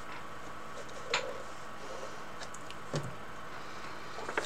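Quiet room tone: a steady faint hiss with a small click about a second in, another about three seconds in, and a few light ticks near the end.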